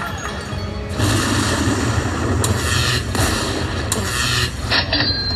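Lightning Link slot machine's bonus-collect sound effects: a series of electronic lightning zaps and booms, starting about a second in, as the chip values are tallied into the win meter.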